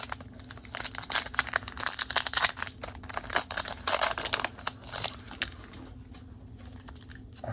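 Foil wrapper of a Pokémon booster pack crinkling and being torn open by hand: a dense run of sharp crackles, thickest about four seconds in, which dies away after about five and a half seconds.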